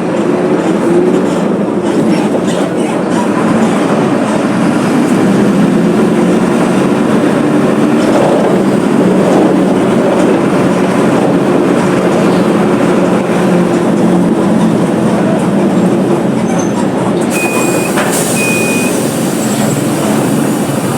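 Mercedes-Benz OF 1721 BlueTec 5 bus's diesel engine running steadily, a constant low hum under a noisy wash. Two short high beeps sound near the end.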